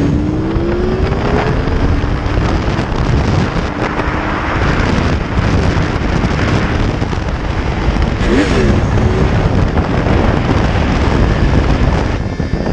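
Motorcycle engine pulling at road speed, its pitch rising through the first couple of seconds as it accelerates, then largely covered by a loud, steady rush of wind noise from riding at speed.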